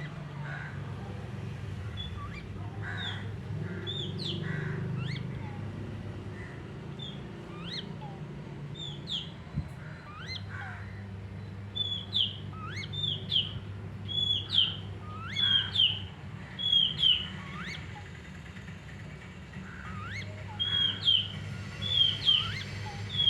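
Young chicks peeping: short, high calls that are sparse at first and then come thick and loud in the second half, over a low steady hum.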